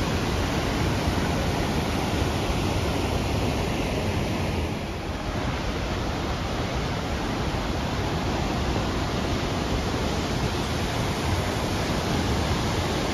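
Steady rushing roar of Crescent Falls, the waterfall on the Bighorn River, pouring into the canyon, dipping slightly for a moment about five seconds in.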